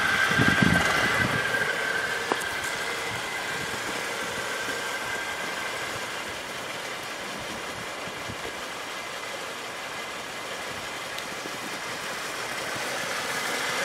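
Renault Megane's 1.6-litre 16-valve inline-four idling steadily, heard from outside the car. It grows a little fainter through the middle and louder again near the end.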